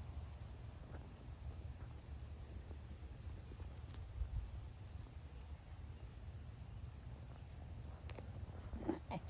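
Steady high-pitched chorus of crickets, over a low rumble.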